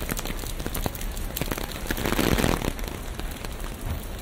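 Rain falling on the city street, with many small close drops ticking, and a swell of noise about two seconds in.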